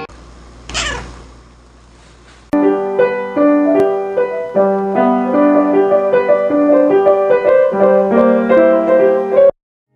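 Piano music: a keyboard tune of steady notes begins about two and a half seconds in and cuts off suddenly near the end. Before it, about a second in, comes a quick sound falling steeply in pitch over a low hum.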